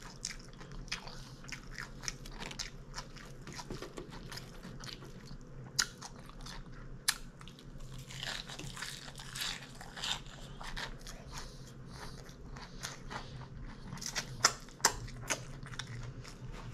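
A person biting and chewing crisp fried food close to the microphone: many small crunches and mouth clicks, with a few louder crunches about six and seven seconds in and again near fourteen to fifteen seconds, over a faint low hum.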